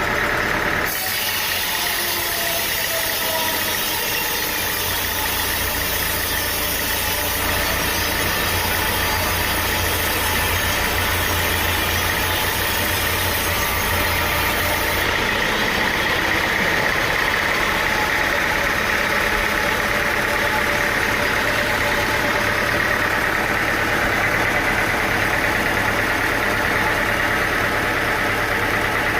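Engine-driven machinery running steadily, with an abrupt change about a second in and another about halfway through.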